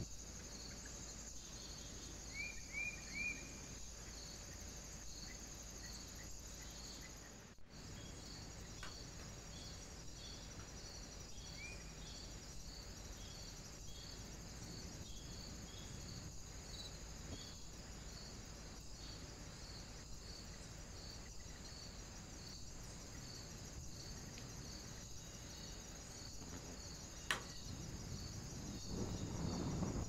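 Faint woodland ambience: a steady high hiss with a faint chirp repeating evenly about once every two-thirds of a second, a quick run of three short rising bird chirps a few seconds in and another chirp midway, a sharp click near the end, then rustling at the very end.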